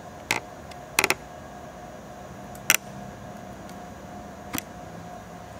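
A handful of small sharp clicks and taps from fingers handling a laptop broadband card and its metal bracket while fitting its cable connector, including a quick pair about a second in and the loudest one near the middle. A steady faint hum runs underneath.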